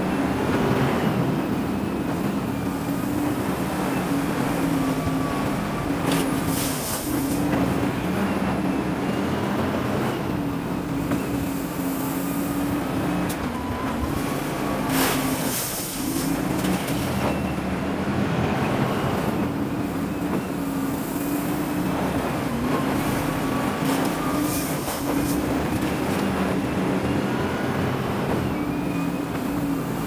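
Large wheel loader's diesel engine running under load, its revs rising and falling as it works the bucket, with a few short hissing bursts.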